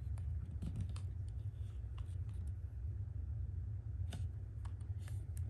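Hands picking up and turning a hard plastic robot dog toy, a Hasbro 2007 I-Dog: scattered light clicks and taps of fingers and parts against the plastic shell, over a steady low hum.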